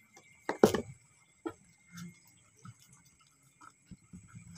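A few sharp clicks and knocks from handling cooking things, the loudest about half a second in and another about a second later. Under them runs a faint, steady, high-pitched insect trill.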